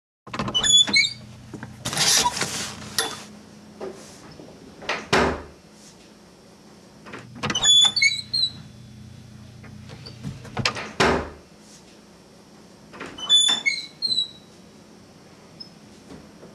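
A closet door opened and shut three times, about every six seconds. Each time there is a sharp latch click with a bright metallic jingle, a brief swish, and then a thud as the door shuts.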